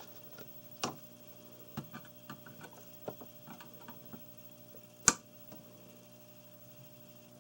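Small switch clicks at uneven intervals as DIP switches and the reset button on a Commodore 64 cartridge cracker are worked, with one sharper click about five seconds in and another just under a second in, over a faint steady hum.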